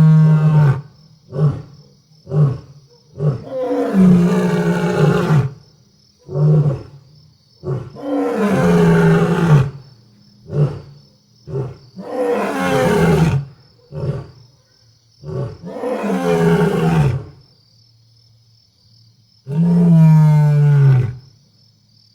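Lions roaring: six long, deep roars with falling pitch, about four seconds apart, with short grunting calls in between.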